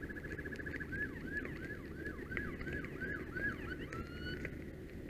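Faint electronic siren of an emergency vehicle: a fast-pulsing steady tone that switches about a second in to quick rising-and-falling yelps, about three a second, and ends on a rising sweep near the end. Underneath runs a steady low rumble.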